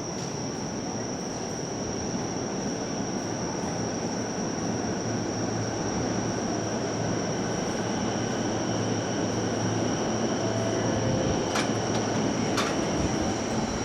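Daiko hydraulic passenger elevator travelling: a steady pump-motor hum and hiss with a thin high whine, slowly growing louder, and two sharp clicks about a second apart near the end.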